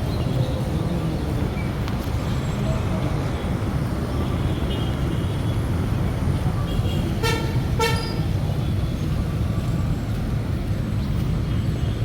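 Steady street traffic rumble, with a vehicle horn giving two short toots about seven and eight seconds in.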